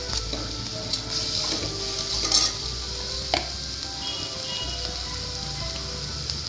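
Sliced onions, green chilli and whole spices sizzling in hot oil and ghee in an aluminium pressure cooker, a steady frying hiss. Two short clicks come a little over two and three seconds in.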